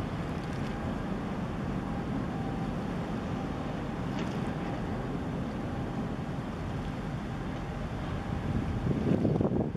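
Wind rumbling on the microphone, with a faint steady hum underneath. The wind swells into a stronger gust near the end.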